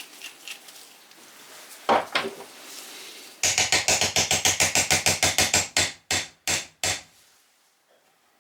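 One knock, then a quick run of sharp hammer taps at about six a second, ending in three slower taps. This is the magneto flywheel of a Sachs 50/3 moped engine being tapped home onto its crankshaft and woodruff key.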